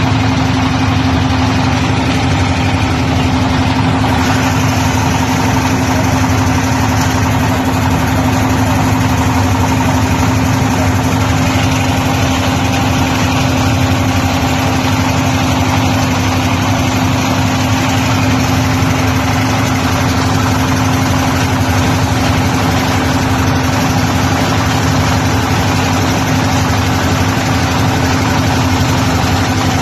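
Boat's engine running steadily at constant speed, an even, unchanging hum with a strong low note.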